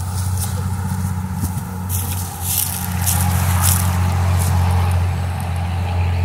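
Wind buffeting the microphone, a steady low rumble, with several short hissing, scraping rustles between about two and four seconds in.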